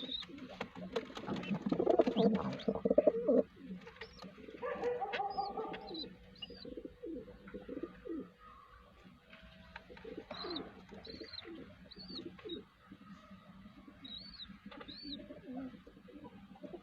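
Domestic pigeons cooing, loudest in the first few seconds and then in quieter spells, with short high chirps now and then.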